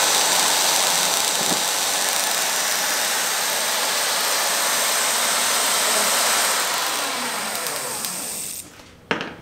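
Bench-test point-ignition rig spinning a distributor, running steadily with a loud whirring hiss, then winding down and stopping near the end. A single sharp click follows just after it stops.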